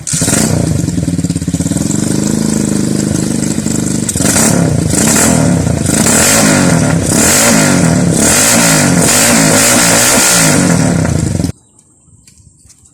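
Thai-concept motorcycle engine revved hard in a sound check. It runs fairly steadily at first, then from about four seconds in the pitch rises and falls about once a second in repeated throttle blips, and it stops abruptly near the end.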